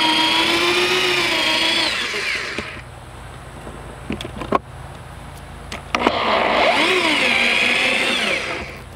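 Corded electric drill running on screws in a wooden frame rib, in two bursts of about three seconds each with a pause between. Its motor whine shifts in pitch, dipping and rising again as it loads. A couple of sharp knocks come in the pause.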